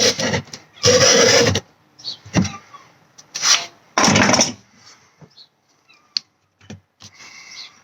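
A golf ball's hard cover being cut into with a hand tool: irregular rasping strokes of about half a second each, then a few sharp clicks near the end.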